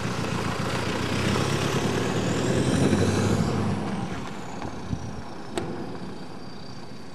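Toyota Land Cruiser Prado SUV driving off over dirt, its engine and tyres loud for the first few seconds and then fading as it pulls away. A faint high whine rises and falls in pitch midway, and there is a single sharp click near the end.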